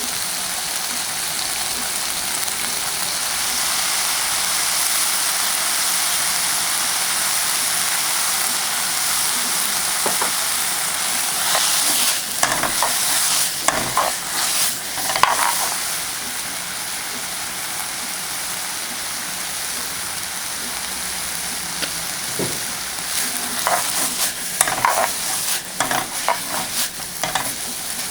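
Vegetables sizzling as they stir-fry in a hot pan, a steady frying hiss. There are bursts of a spatula scraping and clacking against the pan about halfway through and again near the end.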